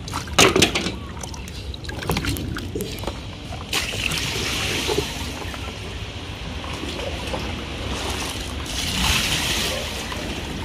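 Water splashing in two bursts, about four seconds in and again near the end, after a few sharp knocks about half a second in.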